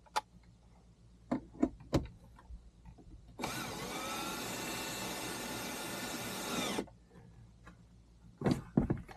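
Cordless drill running for about three and a half seconds, spinning up and then winding down. A few sharp clicks and knocks from parts being handled come before it, and more come near the end.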